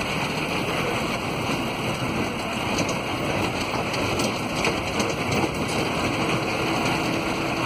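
A vehicle driving along a dirt forest track, heard from inside the cabin: a steady mix of engine, tyre and wind noise, with a few faint rattles.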